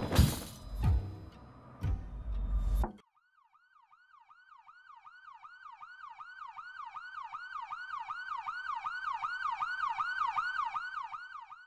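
Heavy thumps and bangs of a scuffle for about three seconds, cutting off suddenly. Then an emergency-vehicle siren in a fast yelp, about two and a half sweeps a second, fades in, grows louder and fades away near the end.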